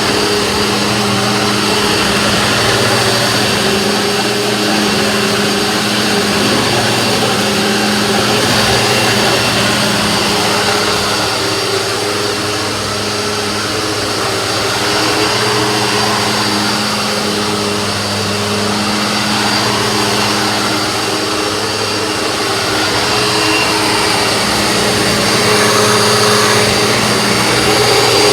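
Household vacuum cleaner running steadily, its motor giving a constant hum under the rush of air, a little louder near the end.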